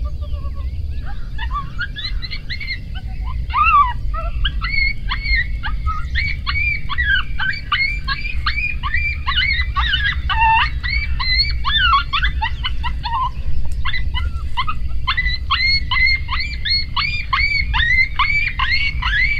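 A chorus of coyotes yipping and howling: many short, high yips that sweep up and drop, overlapping with no break, over a steady low rumble.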